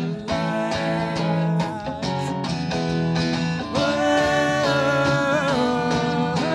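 Strummed acoustic guitar with a man singing; a little past halfway the voice moves into long held notes.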